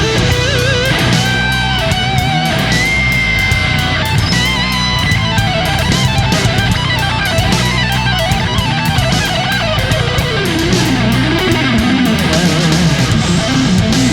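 Background music: electric guitar rock with wavering, bent lead notes over a steady accompaniment.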